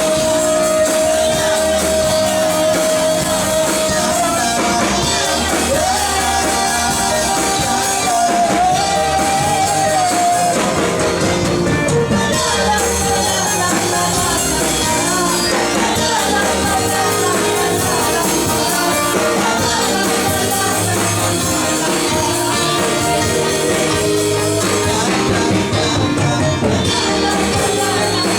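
Live worship music: a band playing with voices singing, at a steady loud level. A long high note is held through roughly the first third, then gives way to looser sung lines over the band.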